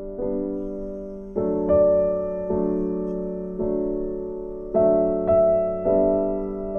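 Background music: slow piano chords, struck about once a second and left to fade.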